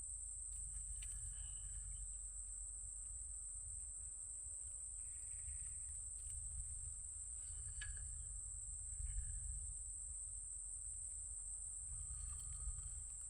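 Steady, unbroken high-pitched insect drone of crickets over a low rumble, with a few faint short chirps.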